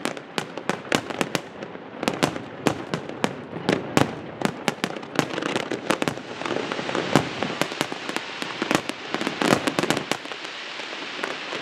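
Fireworks display: a rapid barrage of bangs and crackles, several a second, thinning to scattered pops over a steadier noise in the second half.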